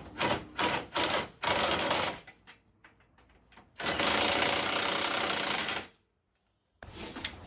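Impact wrench hammering in four short bursts, then one run of about two seconds.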